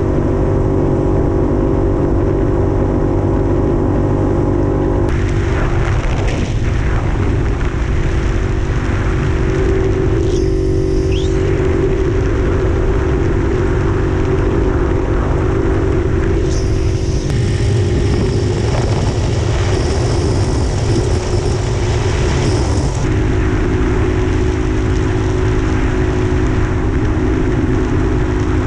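Puch 250 TF's two-stroke split-single engine running at a steady cruise under way, with wind rush on the microphone. Its note shifts a few times, about five, seventeen and twenty-three seconds in.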